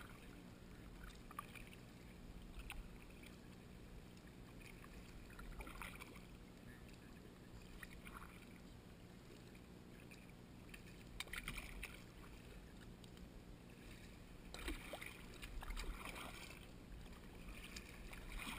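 Faint kayak paddle strokes: the blades dip and drip in calm water, a soft splash every few seconds, with a steady low hum underneath.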